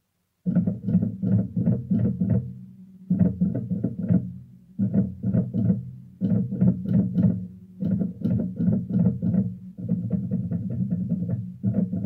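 Background music: plucked guitar over a bass line, playing a rhythmic riff that starts suddenly about half a second in.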